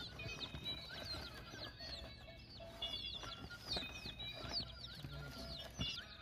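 A group of birds giving many short, high peeps that fall in pitch, overlapping continuously, with a few sharp knocks among them.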